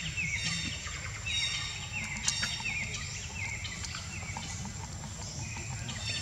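Bird chirping in quick repeated calls, each a short hooked note, about two a second, over a steady high-pitched insect drone and a low background rumble.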